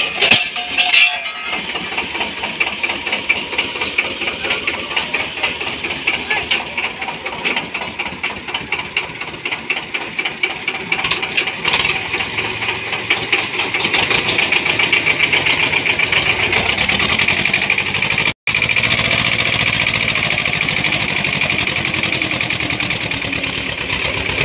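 Old diesel tractor engine catching as it is rope-started by a pulley on the front of its crankshaft, then running with a steady rhythmic chugging as the tractor drives off towing another tractor.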